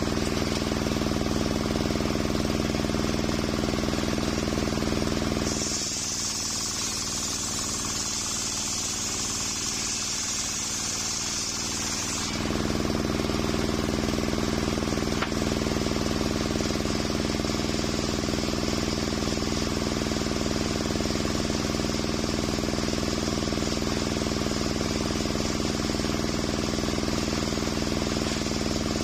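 Table-mounted circular sawmill blade running and ripping coconut wood into beams: a steady machine hum with a hiss of the cut. For several seconds in the middle the low hum fades and a higher hiss comes up, then the steady hum returns.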